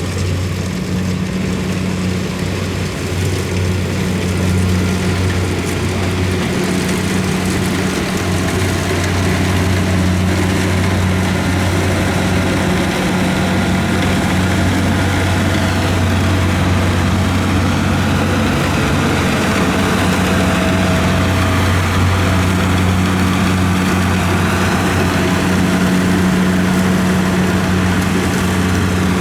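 Kubota combine harvester's diesel engine running steadily with a deep, even hum and mechanical clatter.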